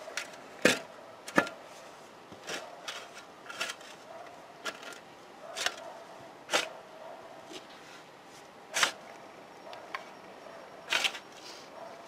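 Steel spade scooping soil and throwing it back into a planting hole: irregular scrapes and knocks of the blade in the earth, a dozen or so. The two sharpest knocks come about a second in.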